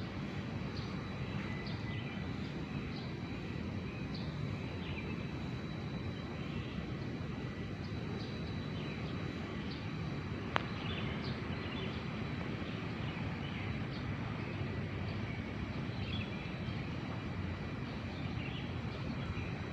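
Faint, brief bird chirps scattered over a steady low background rumble, with one sharp click about halfway through.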